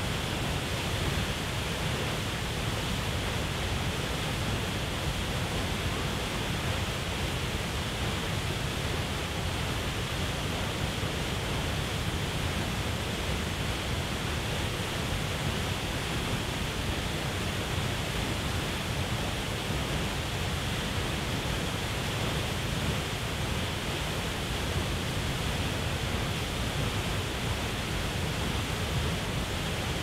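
Tall waterfall plunging into a rocky pool: a steady, unbroken rush of falling water with a deep low rumble underneath.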